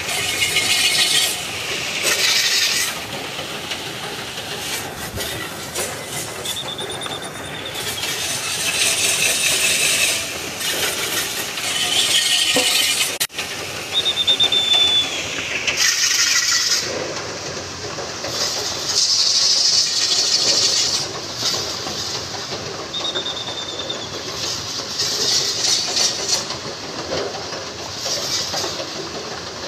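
A pair of racing bulls dragging a wooden beam-and-wheel rig round a circular dirt track, with a rushing, scraping noise that swells every few seconds as the rig passes. Short high squeaks, slightly falling in pitch, come several times.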